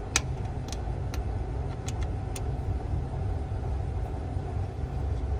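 Steady low machinery rumble, with a few sharp metal clicks in the first two and a half seconds as an Allen wrench tightens the scissor bolt on a Brunswick A-2 pinsetter.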